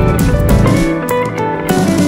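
Background music: a guitar-led track with a steady beat; the bass drops away briefly about halfway through.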